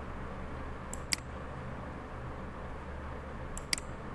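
Two computer mouse clicks, about a second in and near the end, each a quick press-and-release pair as line endpoints are placed, over a steady low hum.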